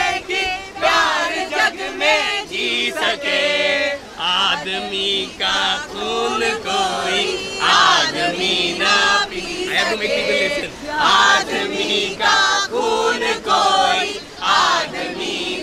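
A crowd singing together in many overlapping voices, loud and continuous with swells and brief dips.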